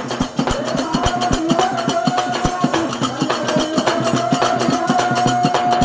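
Banjara devotional bhajan music: quick, steady drum and percussion strokes over a sustained low drone, with a long held melody note from about a second in.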